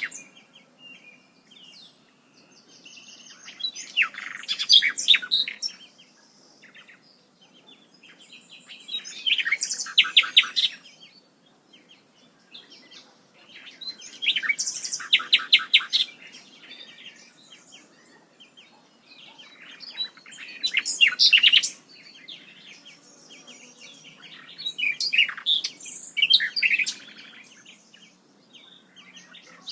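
A songbird singing, one phrase of rapid repeated high notes every five to six seconds, about five phrases in all.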